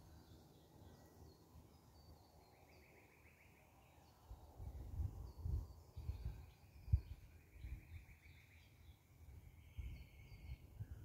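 Birds calling at dawn: a trilled call about two seconds in and a longer one from about six to ten seconds, with scattered high chirps. Low gusty rumbles of wind on the microphone come and go through the second half, the strongest about seven seconds in.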